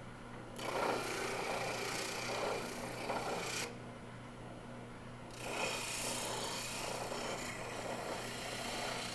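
Spindle sander running with a steady hum while a wooden reindeer's antler is pressed against the sanding drum, making a rough, rasping scrape. The scraping stops for about a second and a half midway, then starts again.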